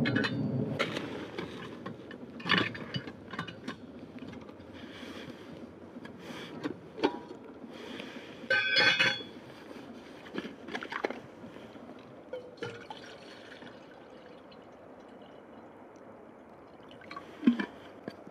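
Water poured from a bottle into a stainless steel Stanley camp pot sitting on a propane camp stove, with scattered clinks and knocks of the metal pot against the stove. A louder ringing clink comes about nine seconds in.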